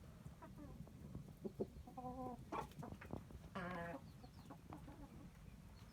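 Chickens clucking: a scatter of short calls, with two longer drawn-out calls about two and three and a half seconds in.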